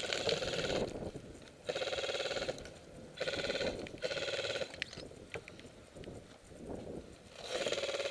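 Airsoft gun firing in short full-auto bursts, five rapid buzzing strings of shots, each under a second, with pauses between them.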